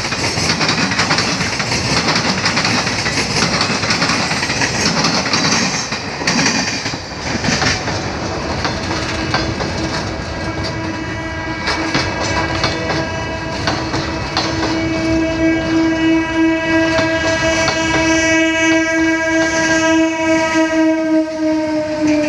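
Passenger train coaches rushing past at speed, wheels clattering over the rail joints. From about nine seconds a train horn sounds one long unbroken blast that grows louder and drops slightly in pitch near the end as an electric suburban local train passes close by.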